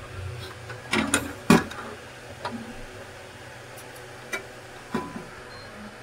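Sharp plastic and metal clicks and knocks from hands working the paper-feed parts of a Ricoh DX2430 duplicator while its friction pad is replaced: a quick cluster of three about a second in, then single clicks every second or so. A steady low hum runs underneath.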